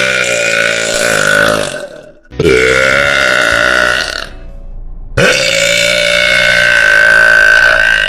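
A woman's very loud, long belches, three in a row, each with a steady held pitch. The first is already under way and ends about two seconds in. The second runs from about two and a half to four seconds. The third starts about five seconds in and is still going at the end.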